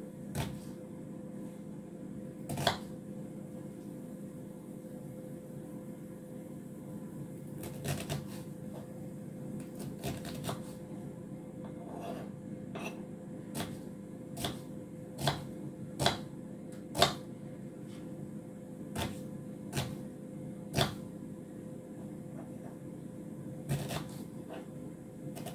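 Kitchen knife chopping a red onion on a wooden chopping board: sharp, irregular knocks of the blade on the board, coming more often in the second half. Under them is the steady hum of a microwave oven running.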